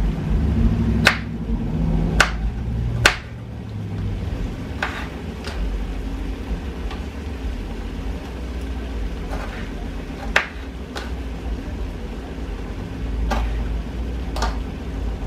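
Knife chopping broccoli florets against a cutting surface: about ten sharp, irregular knocks, the loudest in the first few seconds, over a low steady hum.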